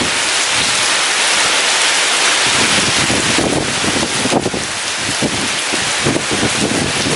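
Heavy rain pouring steadily, with gusts of strong wind rumbling against the microphone.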